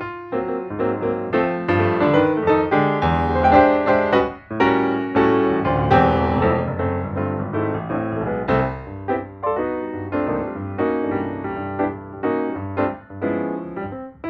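Background piano music: a lively run of quick played notes.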